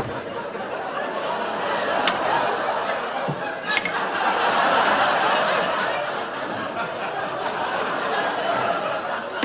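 Studio audience laughing, the laughter swelling about halfway through and then easing off, with a few sharp clicks about two and four seconds in.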